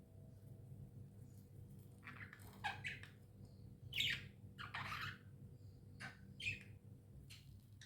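Pet budgerigars giving a run of short, harsh squawks and chirps, starting about two seconds in and clustering in the middle, over a low steady hum.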